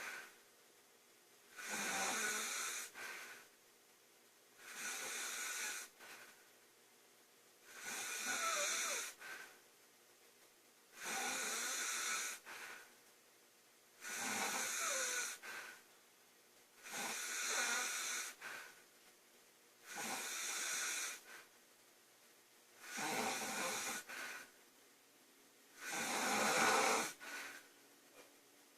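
A woman snoring: nine breathy snores, each about a second and a half long, coming about every three seconds with quiet in between.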